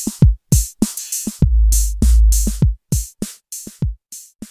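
Outro music: a fast beat of sharp drum hits over long, deep bass booms, thinning out and fading near the end.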